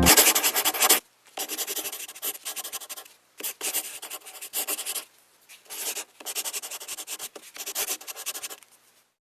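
Rabbit chewing close up: rapid crunching in several bouts of one to two seconds, with short pauses between them.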